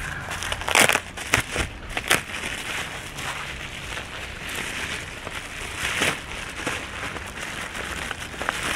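Bubble wrap and plastic packing crinkling and rustling as they are handled and pulled apart by hand, with a cluster of sharp crackles in the first two seconds and another about six seconds in.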